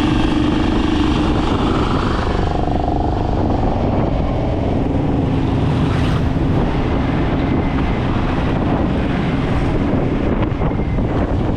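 Motorcycle engine running on the move, with wind rushing over the microphone; the engine note fades back after about two seconds and comes up again near the end.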